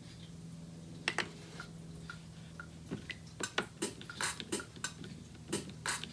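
Drum samples played back from a Roland SP808 sampler: one sharp hit about a second in, then a quick run of crisp, bright percussive hits from about three seconds in, over a steady low hum.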